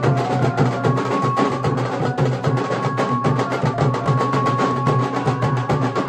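Nashik dhol band: several large barrel drums beaten fast with sticks in a dense, driving rhythm, loud and without a break.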